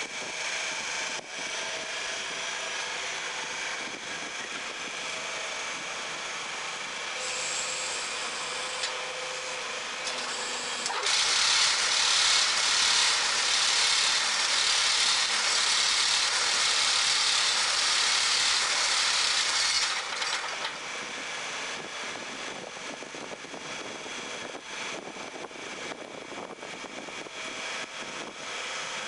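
Hydraulic paving-block press (HJM 6 MPP) running steadily as its control levers are worked. From about eleven seconds in, a much louder, harsher noise takes over for about nine seconds, then drops back to the steady running sound.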